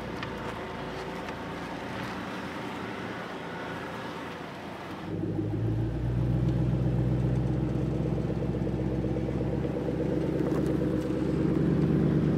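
Vehicle engine running steadily under load as it slowly tows a car stuck in sand out on a rope. About five seconds in, the engine sound turns louder and deeper.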